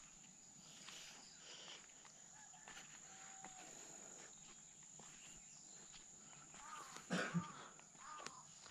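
Faint rural morning ambience: a steady high insect drone with scattered bird chirps, and a brief animal call about seven seconds in, the loudest sound.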